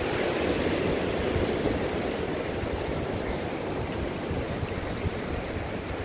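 Rough sea surf washing against the seawall and beach, a steady rushing noise, with wind buffeting the microphone.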